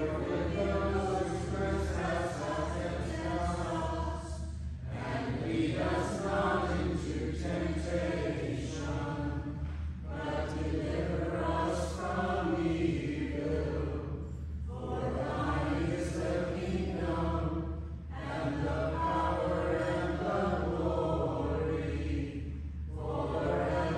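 Choir singing in phrases of a few seconds each, with brief breaks between them.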